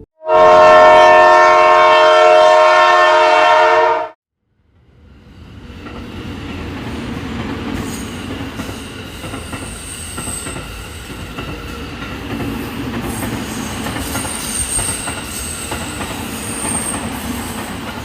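Train horn sounding one long, loud, steady blast of about four seconds that cuts off sharply. Then a Nilgiri Mountain Railway train is heard running along the track, its rumble building up, with high wavering wheel squeal from the curving rails.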